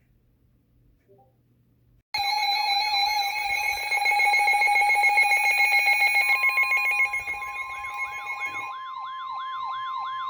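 Weather alert radio going off for a new severe thunderstorm warning. A loud buzzing alarm starts suddenly about two seconds in, with a yelping siren sweeping up and down about three times a second. The buzzing drops out after about six seconds, while the yelp continues under a steady single-pitch tone, the NOAA Weather Radio warning alarm tone.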